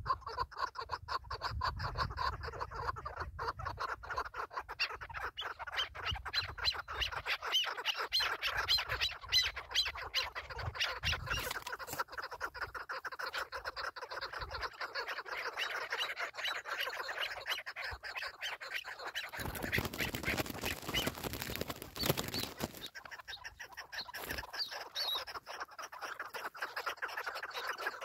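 Chukar partridges calling: a long, fast run of repeated clucking notes, with a burst of rustling noise about twenty seconds in.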